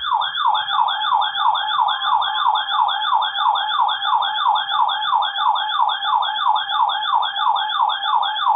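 Loud electronic siren-like alert tone from a weather alert radio, sweeping rapidly up and down in pitch about three times a second in an even, repeating yelp.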